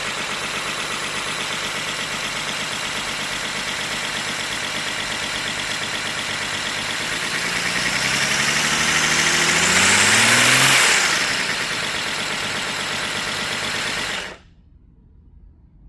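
3D-printed inline-six air engine running on compressed air. About eight seconds in it speeds up, rising in pitch and growing louder, then settles back, and the sound cuts off suddenly near the end.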